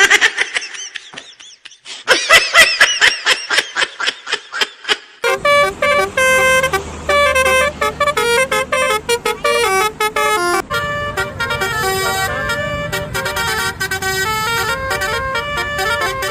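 Multi-tone telolet bus horn: a rapid warbling trill for the first few seconds, then a stepped melody of held notes from about five seconds in.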